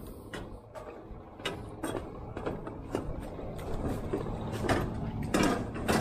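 Footsteps in rubber boots on a slatted metal walkway, clanking about twice a second at a walking pace, over a low steady background rumble.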